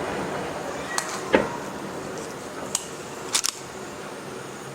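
Fireworks: a handful of sharp pops and cracks, the close pair near the end the loudest, over a steady background haze as the noise of a large burst dies away.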